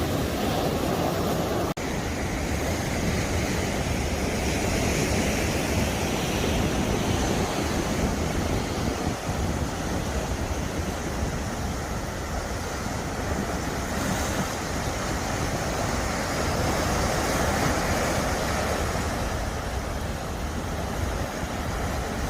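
Sea waves washing and breaking against a rocky shore in a steady, swelling rush, with wind rumbling on the microphone.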